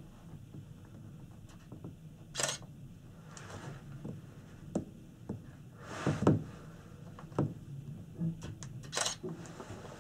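Scattered clicks, knocks and short rustling noises inside a small gondola cabin on the move, over a low rumble. Louder bursts come about two and a half seconds in, around six seconds and near nine seconds.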